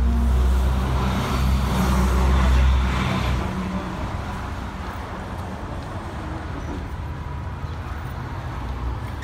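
City street traffic: a vehicle's engine rumbles and passes close by during the first three seconds, then gives way to steadier, quieter traffic noise.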